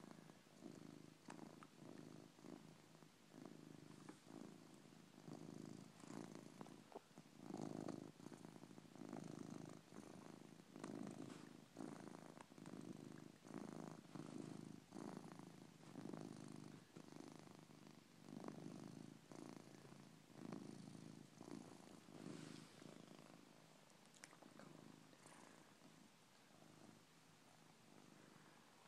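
Domestic cat snoring in deep sleep: faint, low, rasping breaths at roughly one a second, fading toward the end.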